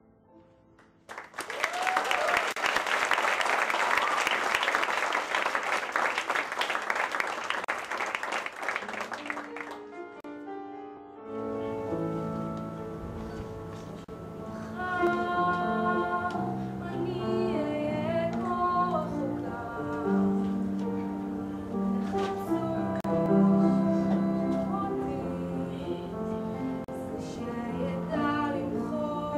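Audience applause for about nine seconds, then an instrumental accompaniment starts and a woman begins singing over it a few seconds later.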